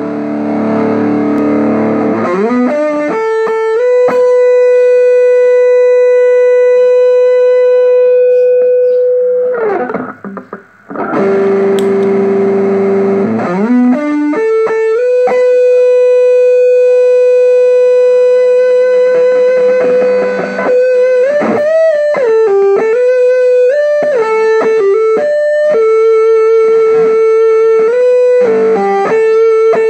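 Electric guitar played through an ADL Compressor Sustain pedal and an ADL Head Amp pedal, with slight overdrive. Strummed chords ring down into single notes held for many seconds, showing off the compressor's long sustain. Near the end the held notes are bent and shaken with vibrato.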